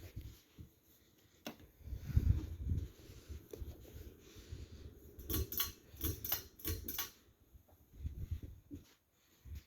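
Harbor Breeze Armitage ceiling fan running, its draft buffeting the microphone in uneven low rumbles, with a quick run of about six sharp clicks a little past halfway.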